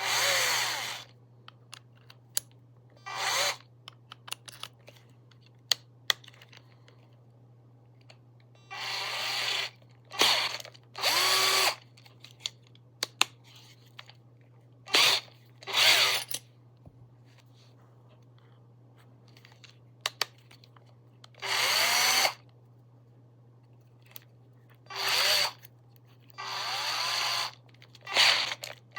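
A cordless drill-driver (DEKOPRO 12 V) is run in about a dozen short trigger bursts, each under about a second. The motor whines up in pitch as it spins up and drops as it coasts down. Small clicks fall between the bursts.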